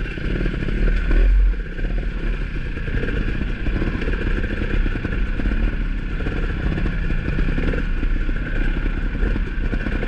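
Off-road dirt bike engines running at low speed as they pick their way over rough ground, briefly louder about a second in.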